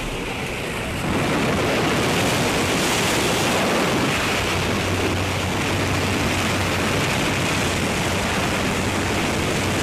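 Rushing wind and the steady drone of a jump plane's engine and propeller heard at its open door in flight, the rush growing louder about a second in.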